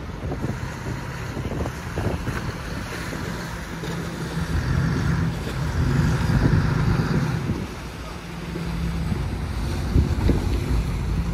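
Fishing-boat engines running with a steady low hum, water churning along the hulls, and wind buffeting the microphone.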